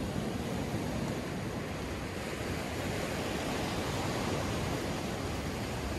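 Ocean surf washing onto a sandy beach: a steady, even wash of noise with no distinct breaks or impacts.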